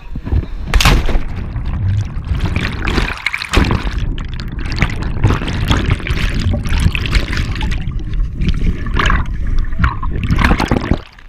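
A person hits a river feet-first after a cliff jump, with a sharp splash about a second in, followed by loud churning water and rushing bubbles heard from underwater. A few more surges of turbulence come as the body kicks back toward the surface near the end.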